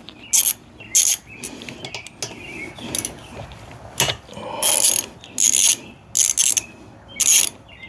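Socket ratchet clicking in short bursts at uneven intervals as 8mm bolts are loosened and backed out.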